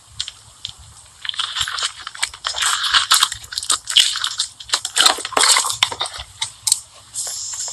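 Slime being squished and pressed, giving a dense run of crackling clicks and pops that starts about a second in.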